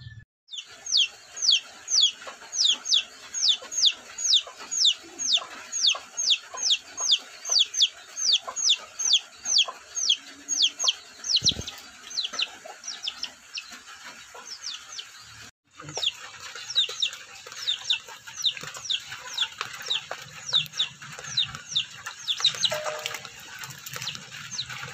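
A chick peeping over and over in loud, high, downward-sliding peeps, about two to three a second. The peeps break off for a moment about fifteen seconds in, then go on less evenly.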